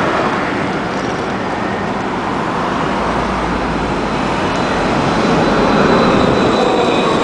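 Low-floor Alstom Citadis tram approaching and passing close by, the running noise of its wheels on the rails growing louder as it draws level, over the steady noise of road traffic alongside.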